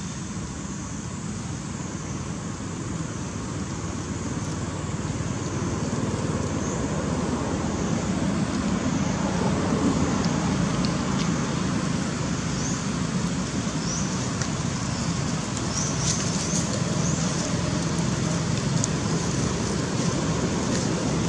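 Steady rumble of road traffic that swells a few seconds in and then holds, with a few faint, short, high chirps above it.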